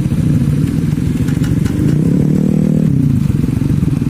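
Race-tuned Honda Scoopy automatic scooter engines running loudly at a drag-race start line. Revs climb about two seconds in and fall back just before the third second.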